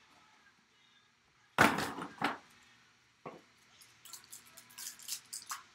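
A trading-card box being pulled open by hand: a loud cardboard rasp about a second and a half in, followed by two shorter ones. Then light plastic clicks and crinkles as a card in a clear plastic holder is handled.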